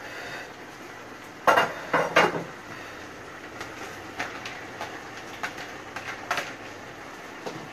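Cooking pot and lid clattering on the stove: three loud knocks about one and a half to two seconds in, then lighter clinks and taps.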